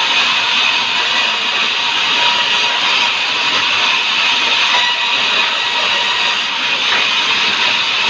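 Sawmill band saw running steadily while it cuts a sengon log fed along its table: a loud, even hiss with a faint high whine held throughout.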